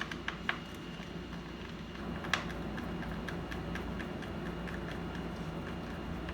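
A series of light clicks and ticks, a few sharp ones near the start and a louder one a little past two seconds in, then many small ticks, over a steady hum.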